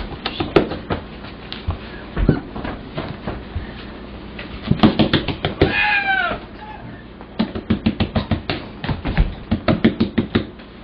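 Fingers tapping and scratching on a hard floor in quick runs of clicks, about five a second. A chattering lory gives one short squawk that rises and falls about six seconds in.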